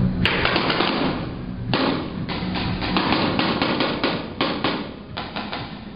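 Paintball markers firing: a string of sharp pops, several in quick succession around the middle and more spread out near the end.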